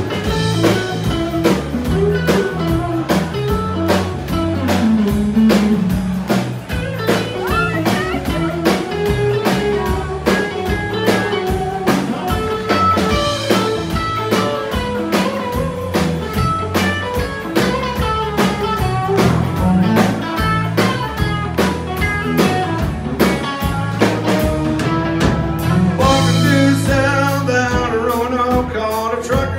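Live country band playing loud through the PA: fiddle, electric and acoustic guitars, bass and a steady drum beat, with singing.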